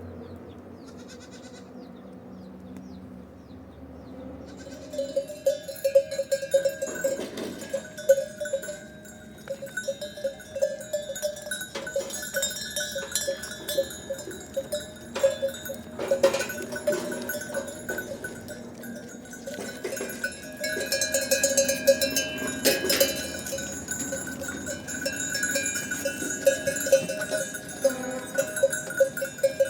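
Many livestock bells clanking and jingling irregularly as a herd moves, starting about four seconds in.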